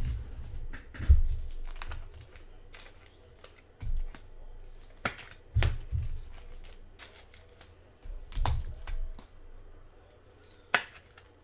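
Trading cards being handled: scattered light clicks, taps and rustles of cards sliding and being set down, with a few dull low thumps.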